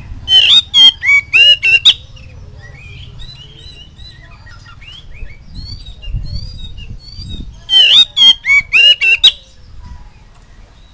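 Oriental magpie-robin singing: two bursts of loud, rapid notes, one near the start and one about eight seconds in, each lasting about a second and a half, with soft twittering between them.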